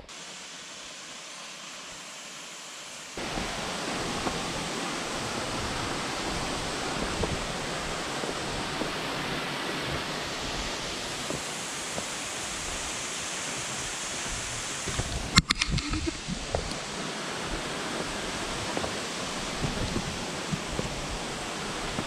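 Steady rush of a waterfall, an even hiss that gets louder about three seconds in. A single sharp knock about fifteen seconds in.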